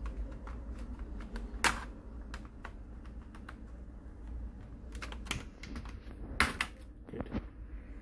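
Scattered plastic clicks and snaps from an Asus X501A laptop keyboard being pressed and pried out of its retaining clips with a plastic pry tool, with two sharper snaps, one about two seconds in and one past six seconds.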